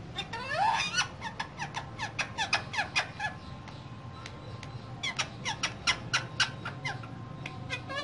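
Caged ringneck parakeets giving a rapid run of short, sharp squeaky calls, about four to five a second, in two runs with a pause of a second or so between them.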